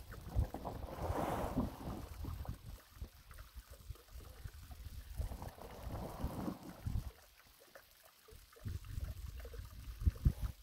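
Wind buffeting the microphone, with a large black plastic pond liner rustling and crinkling in two spells, about a second in and again around six seconds.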